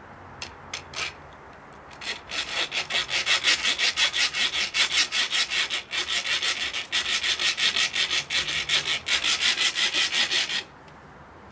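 Hacksaw sawing back and forth on the steel shackle of a Kryptonite Keeper U-lock, fast even strokes of about four a second that start after a couple of seconds and stop abruptly near the end. The blade makes no real headway, only breaking the shackle's coating.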